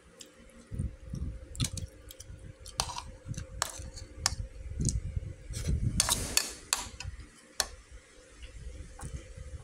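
Metal spoon clinking and scraping against a plastic bowl of rice: a series of sharp clicks, with a longer scrape about six seconds in.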